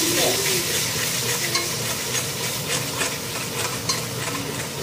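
A spatula stirring a thick coconut-and-cashew paste into masala sizzling in oil in a blackened kadai, with repeated scrapes against the pan over a steady frying hiss.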